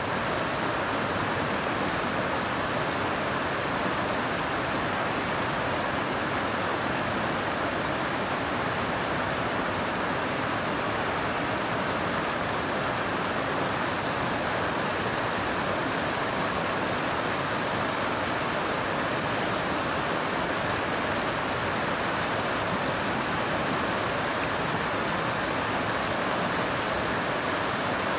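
South Fork Snoqualmie River in flood, a steady, even rush of whitewater over boulders; the river is swollen by heavy rain washing away new snow.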